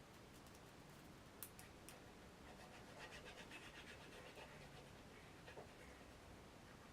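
Very faint handling of paper pieces: two light taps about a second and a half and two seconds in, then soft rubbing for about a second.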